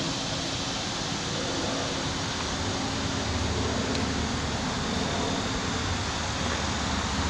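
Steady background hiss and hum with no barking, and a low rumble that swells about three seconds in as the handheld camcorder is swung down and jostled: microphone handling noise.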